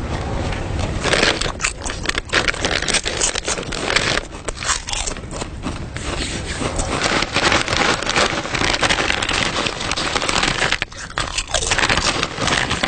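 Loud, continuous crunching and crackling of food being chewed noisily, in irregular crunches with a brief lull near the end.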